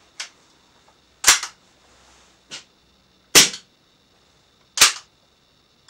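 Cybergun Desert Eagle CO2 airsoft pistol fired empty, with gas and no BBs: four sharp shots at uneven intervals, the last right at the end, with two fainter clicks in between. It sounds not very loud for a pistol of its size.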